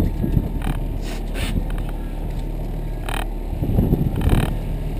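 Boat motor running steadily at trolling speed, with wind and water noise and several brief hissing bursts over it.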